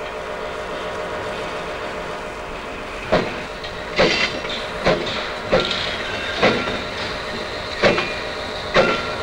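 Metal being struck over and over: sharp ringing clangs about once a second, starting about three seconds in, over a steady droning tone.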